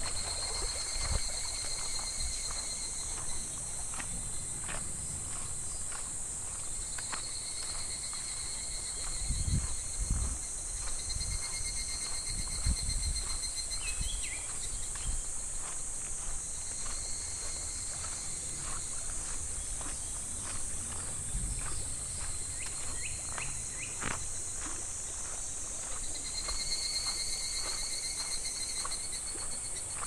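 Cicadas droning steadily in the trees, with a pulsed insect call that repeats in phrases of about three seconds every few seconds. Under it, the shallow stream trickles over pebbles with faint ticks, and there is some low wind rumble on the microphone.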